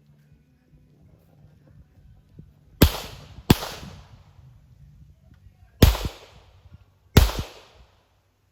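Four pistol shots fired on a timed course of fire, each a sharp crack with a short echo. Two come close together about three seconds in, then two more at about six and seven seconds.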